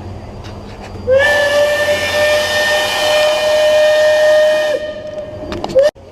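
Steam whistle blowing one long blast of about four seconds, a steady pitched tone with a breathy hiss that slides up briefly at the start, then one short toot near the end.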